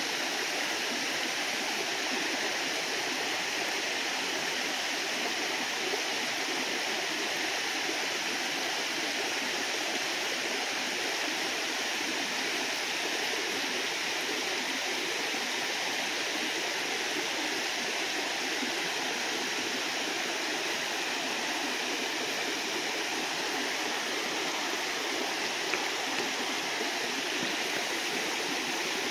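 Creek water cascading over small rock ledges and a low stone weir: a steady rushing and splashing that holds an even level throughout.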